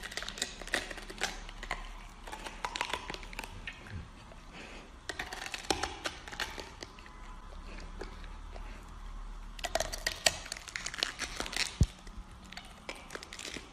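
Golden retriever biting and chewing a whole red cabbage: irregular crunching and tearing of the crisp leaves, busiest about ten seconds in.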